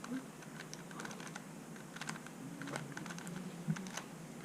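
3x3 Rubik's cube being turned by hand through a corner commutator: a run of quick, irregularly spaced, faint clicks as the layers are twisted.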